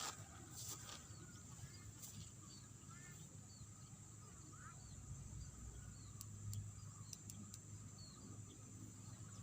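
Faint rice-field ambience: short, high bird chirps repeated many times over a steady high-pitched drone, with a low rumble beneath and a few sharp ticks.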